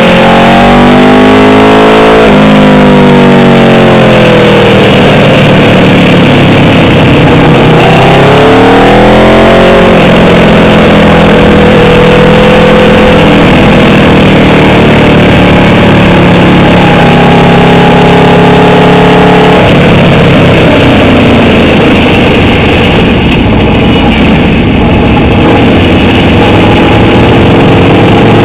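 Aprilia RSV4's V4 engine at speed on track, heard from an onboard camera over steady wind rush. The revs climb and fall with the riding, with sharp drops in pitch about two seconds in, near ten seconds and near twenty seconds, and a steady pitch between about ten and twenty seconds.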